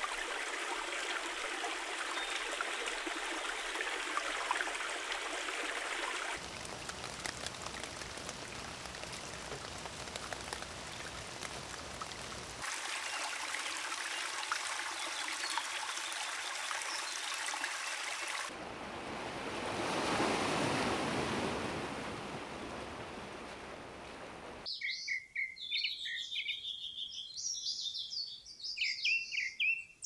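Running water, a steady rushing hiss, in several short clips cut one after another; in one of them the rush swells and fades. In the last few seconds birds chirp in quick calls over a quieter background.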